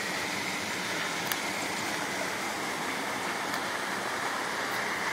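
Small creek running, a steady wash of water.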